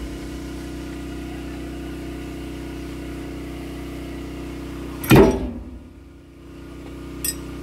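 A steady machine hum like an engine running. About five seconds in comes one loud clunk, and a short light click follows near the end.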